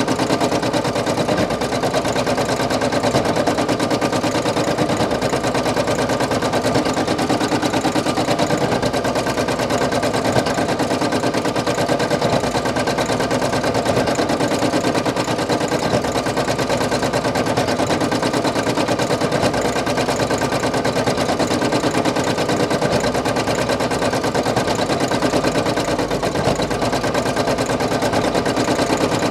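Brother PE800 embroidery machine running, its needle stitching a white fill area with a rapid, even rhythm.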